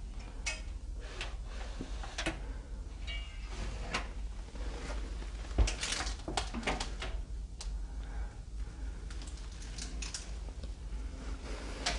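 A round metal doorknob being turned and rattled, its latch clicking, as a metal door is worked open: irregular clicks and knocks, with one louder knock about five and a half seconds in.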